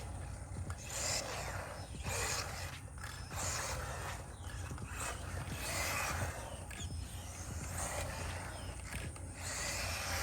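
Small electric RC truck's motor and gears whirring in repeated surges, rising and falling in pitch as it speeds up and slows through passes.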